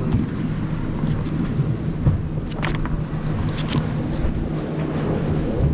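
Motorboat engine running steadily under way, with wind and water noise against the hull and two brief splashes of spray near the middle.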